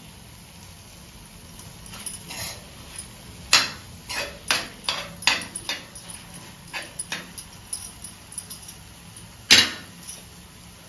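Steel spoon knocking and scraping against a brass pan while stirring a thick coconut-and-jaggery filling: a run of irregular clinks and knocks, with one sharp knock near the end.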